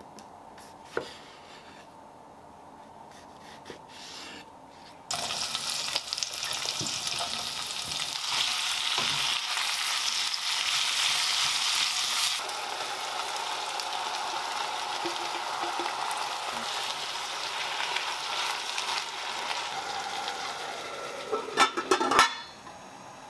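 Diced zucchini and bell pepper sizzling in olive oil in an enamel saucepan as they are stirred with a silicone spatula. A few light knife taps on a wooden board come first, then the sizzle starts suddenly about five seconds in and eases a little midway. Near the end a few sharp clanks come as the enamel lid is set on the pot.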